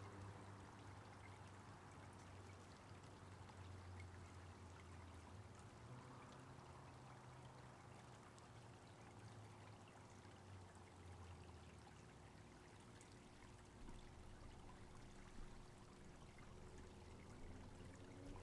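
Faint, steady flow of a small woodland creek running over rocks.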